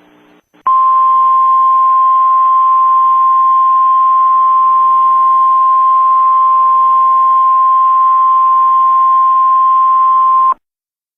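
Emergency Alert System attention tone: a single loud, steady high-pitched tone held for about ten seconds, starting under a second in and cutting off abruptly, with a faint hiss beneath it. It signals that an emergency alert message follows.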